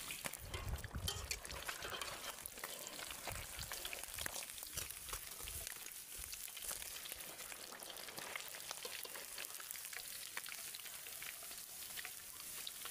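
Chicken frying in hot oil: a steady sizzle with fine crackles and spits, as pieces are being lifted out to drain. There is some low knocking in the first second or so.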